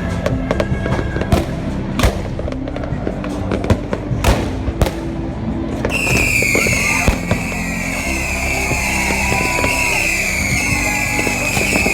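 Fireworks going off in a string of sharp bangs over background music, the bangs thickest in the first half. About halfway through, a high steady tone comes in and holds.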